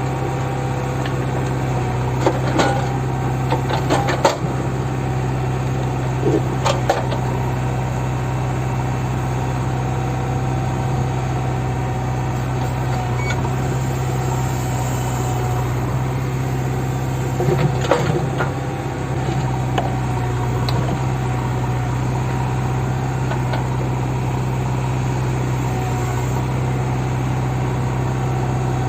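JCB backhoe loader's diesel engine running steadily, with a few short sharp knocks along the way, the loudest about 4 and 18 seconds in.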